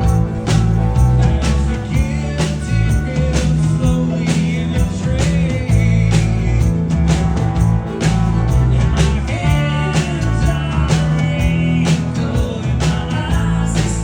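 Rock band playing live, with a regular drum beat, bass and electric guitar.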